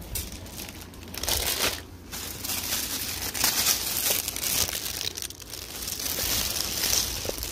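Plastic bag crinkling on and off as hands rummage through the braiding hair inside it, louder from about a second in.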